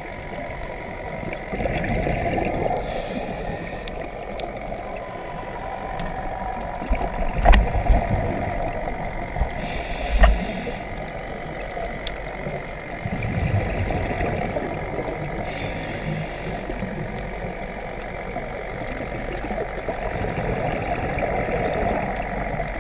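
Underwater sound of a scuba diver breathing on a regulator: a steady bubbling rumble, with a short hissing rush of exhaled bubbles about every six or seven seconds. A few sharp knocks near the middle, like the camera housing being handled.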